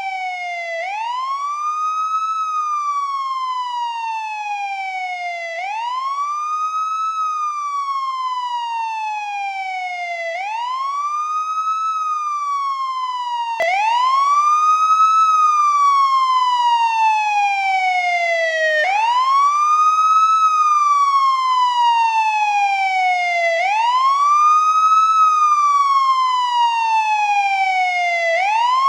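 Police siren on its wail setting: a tone that rises quickly and falls slowly, repeating about every five seconds. About halfway through, a cycle restarts abruptly and the siren gets a little louder.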